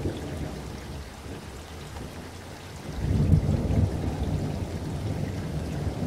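Steady rushing, rain-like noise with a low rumble that swells about three seconds in.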